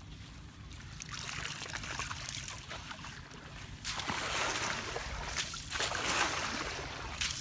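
Muddy water sloshing and splashing as a woven bamboo scoop basket is swept through the shallows and lifted, water pouring out through its weave; louder from about four seconds in.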